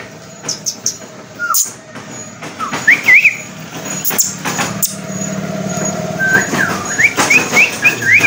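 Pet parrot giving short whistled chirps that rise and fall: a few around two to three seconds in, then a quicker run near the end. A steady low hum and scattered clicks run underneath.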